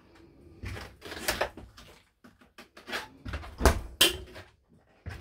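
Caravan door and cupboard fittings being handled: clicks and knocks of a door being shut and a cupboard being opened, with two sharp thuds about three-quarters of the way in.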